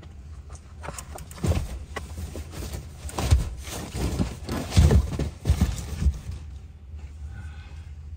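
Irregular thumps, knocks and rustling inside a parked car as a person climbs in and stows shopping bags, loudest about three and five seconds in, over a low steady rumble in the cabin.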